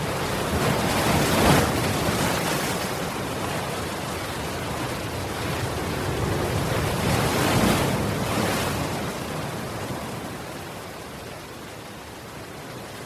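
Ocean surf breaking against a seawall: a steady rushing wash that swells into two loud crashes, one about a second and a half in and one near eight seconds, then eases to a softer wash toward the end.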